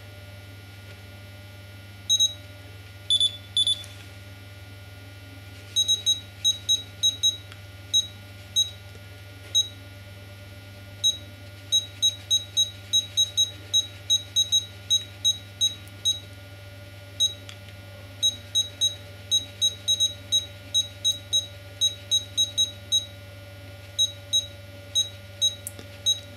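Futaba T8FG radio-control transmitter beeping at each key press and step of its menu dial: dozens of short, high beeps, irregularly spaced and at times in quick runs of three or four a second. A steady low hum runs underneath.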